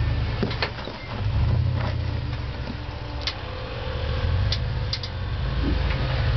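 Engine of a lifted Jeep running at low revs as it crawls over boulders, swelling and easing with the throttle. A few short sharp clicks are heard over it.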